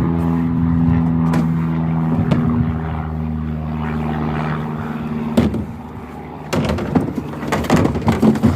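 Propeller of a small electric aircraft flying over, a steady pitched drone that fades out about five and a half seconds in. Irregular rustling and knocks follow near the end.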